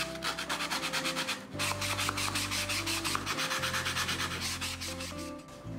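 Hand file rasping back and forth along the inside edge of a slot cut in a fibreboard panel, smoothing the slot's cut edge. The strokes come quick and evenly, with a short pause about a second and a half in.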